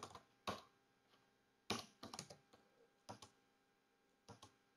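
Faint keystrokes on a computer keyboard as a command is typed: single clicks and a short quick run of taps, with pauses between them.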